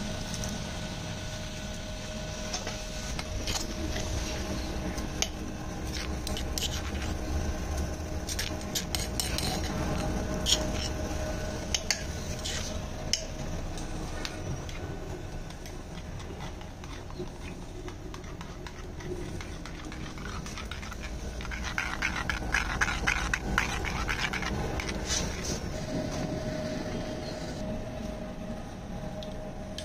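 Spoon and crockery clinking and scraping while salad is plated and green chutney is spooned and stirred in a clay bowl, with a stretch of quick, dense scraping about two-thirds of the way through. Underneath runs the steady hum of the blower-fed stove.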